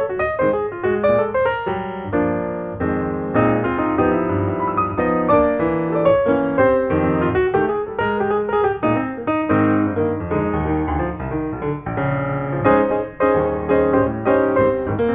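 Background piano music, a melody over chords with notes struck in quick succession.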